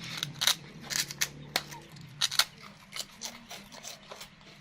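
A baby monkey crunching crisp Vietnamese rice crackers: about a dozen irregular sharp crunches and clicks, thickest in the first half and thinning out toward the end.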